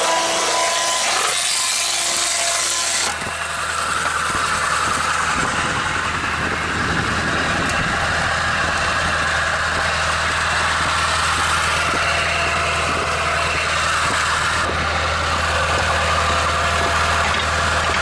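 Board edger's saw blades ripping through a wooden board with a high whine, the cut ending abruptly about three seconds in. After that the blades spin free and the vehicle engine driving the edger by belt runs steadily with a low hum.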